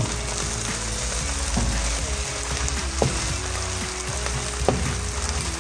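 Fried rice sizzling in a hot pan as a wooden spatula stirs and turns it, with a steady hiss. The spatula knocks sharply against the pan twice, about three seconds in and again a second and a half later.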